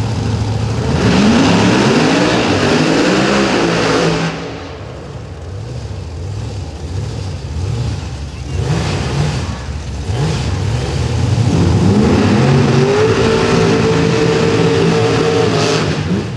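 Drag-race car engines revving at the starting line: the revs sweep up repeatedly about a second in, drop back with short blips in the middle, then climb and hold steady at high revs near the end.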